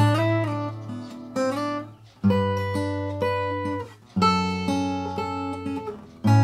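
Herman 600 acoustic guitar with a solid spruce top being strummed: four chords in a row, each left to ring and die away before the next is struck.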